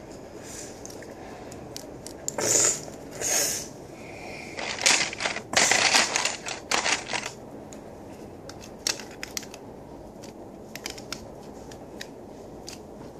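Plastic Lego bricks being handled and fitted together: a few rattling, scraping bursts in the first half, loudest about five to seven seconds in, then scattered small clicks.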